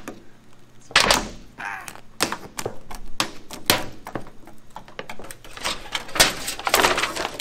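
Thin sheet metal and plastic sunroof parts clattering, clicking and crinkling as a cut-out sunroof section is pried and pulled from a car roof, with louder crunching bursts about a second in and again near the end.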